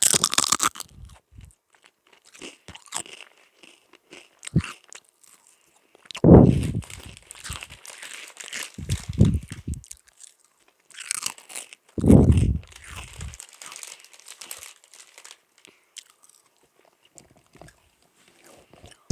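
Close-up chewing and crunching of Sunbites crisps in the mouth, crackly bites scattered throughout, with three heavy low thumps about 6, 9 and 12 seconds in.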